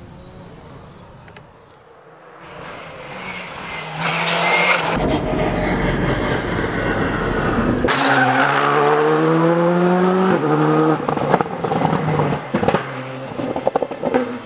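Quiet outdoor ambience, then a rally car's engine running hard as it accelerates, its pitch climbing twice with a gear change between, followed by a series of sharp cracks.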